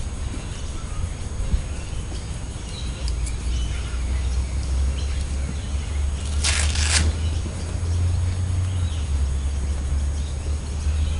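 A zipper on the inflatable kayak's fabric shell rasps open once, briefly, about six and a half seconds in, over a low steady rumble, with faint bird chirps.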